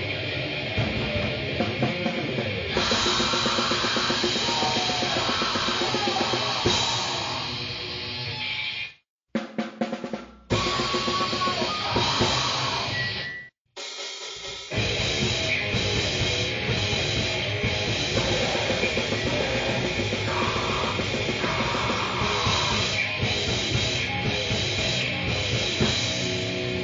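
Grind/noise music: pounding drum kit with cymbals under dense distorted guitar and noise. It cuts out abruptly twice, about 9 and 13.5 seconds in, with short, loud, choppy fragments between, then restarts at full density, like one short track ending and the next beginning.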